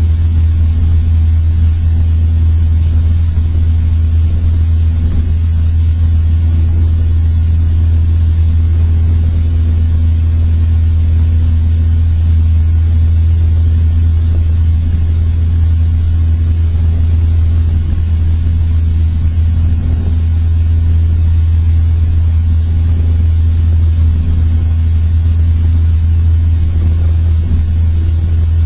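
Cessna 172's four-cylinder Lycoming piston engine and propeller running steadily in flight, a loud, even, low drone with no change in pitch.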